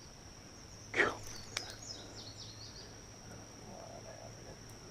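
Insects trilling steadily at a high pitch. About a second in comes a short falling vocal sound, the loudest thing here, followed by a run of faint, quick, descending bird chirps.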